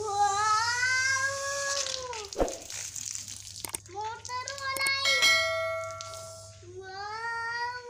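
Young children singing long, drawn-out notes that rise and fall, in three spells; about halfway through, a click and a steady ringing bell chime.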